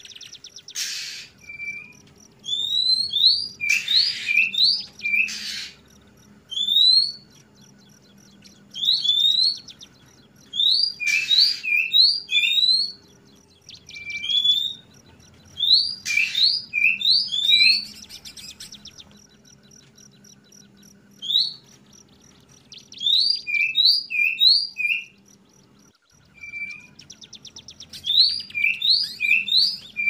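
Juvenile oriental magpie-robin (kacer trotol) calling in repeated short bursts of two to four quick rising whistled notes, mixed with short harsh rasping notes: the 'wik plong' call that keepers play as a model for young birds to learn. A faint steady hum runs underneath.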